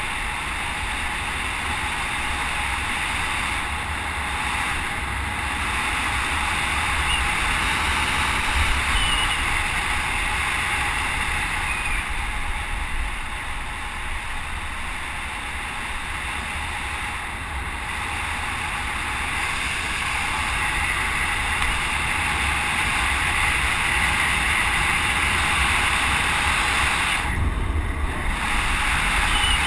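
Wind rushing over a helmet-mounted action camera on a fast road-bike descent: a steady rush of wind noise with low buffeting rumble, easing a little midway and building again toward the end.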